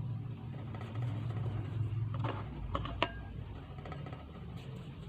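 A few light clicks and knocks, like a spoon on a bowl while tapioca dough is mixed, over a low steady hum.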